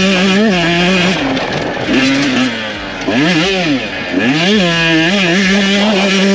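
Husqvarna TC125's two-stroke single-cylinder engine being ridden hard on a motocross track. It runs high and steady, then around the middle the throttle is chopped and reopened twice, so the pitch drops and climbs sharply, before it holds high again. Wind hiss on the bike-mounted microphone runs over it.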